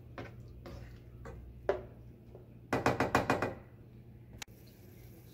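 A slotted plastic spatula knocking against a nonstick skillet of sautéed onions and tomatoes: a few single knocks, then a quick run of about six strikes about three seconds in, and one sharp click near the end, over a low steady hum.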